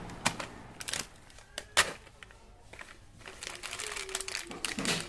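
Small plastic candy wrappers crinkling and crackling as packets are handled, with a few sharp separate crackles in the first two seconds and denser crinkling in the second half.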